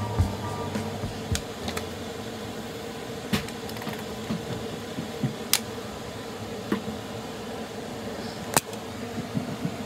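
Steady mechanical hum of a fan-like appliance indoors, with a few sharp clicks and scattered soft knocks.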